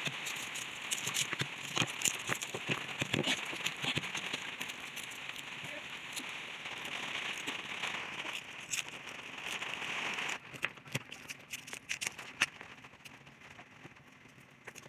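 Papery garlic skins crackling and cloves clicking on a wooden cutting board as garlic is peeled by hand, with many quick crackles over a steady hiss. The hiss cuts out about ten seconds in, and the clicks thin out after that.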